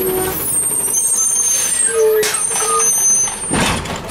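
A Peterbilt 320 CNG garbage truck with a Heil DuraPack 7000 side-loader body rolling to a stop, its brakes squealing in several high-pitched squeals. Short hisses of air come from the air brakes about two seconds in and again near the end.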